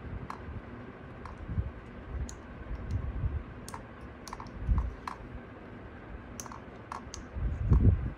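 Small plastic cable connectors on case-fan ARGB leads clicking and tapping as they are handled and plugged together, with a few low handling thumps, the loudest near the end.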